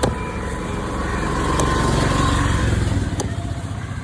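An engine rumbling, swelling about a second in and easing off near the end, with a few sharp clicks.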